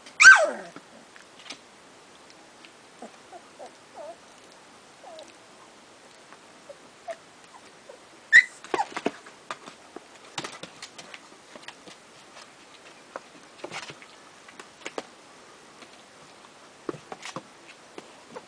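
Puppies squeaking and whimpering, with a loud yelp falling in pitch at the start and another high yelp about eight seconds in, amid scattered soft clicks and scratches.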